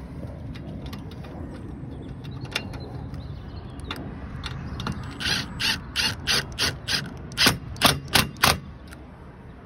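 Ratchet clicking in a quick run of about ten strokes, roughly three a second, starting about halfway through, over a low steady rumble.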